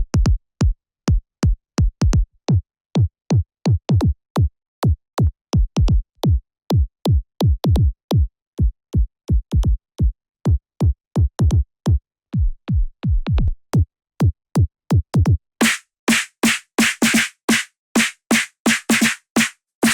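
Electronic drum-rack hits played in a steady run of about three a second: synthesized kick drums whose pitch drops sharply into the deep bass. About fifteen seconds in, they give way to noisier, brighter snare-like hits, each carrying a low ringing tone.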